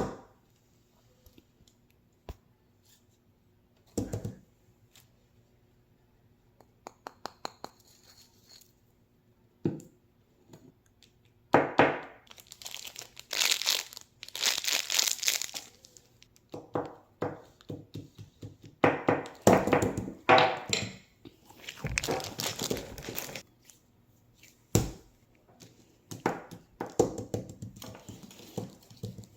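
Close-up handling noise: scattered clicks and knocks, then irregular spells of crinkling and rustling, loudest a third of the way in and again past halfway.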